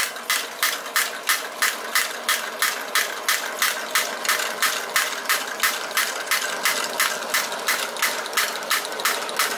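Wilesco toy drop hammer, belt-driven by a fast-running Stirling engine, clacking steadily about three times a second as it rises and falls, over the steady roaring of a Supaburner gas burner heating the engine.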